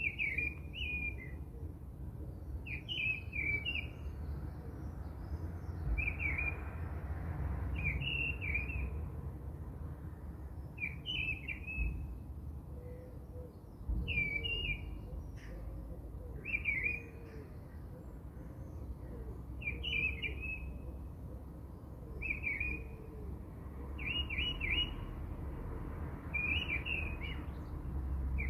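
A bird chirping in short, repeated phrases, one every two to three seconds, over a steady low rumble.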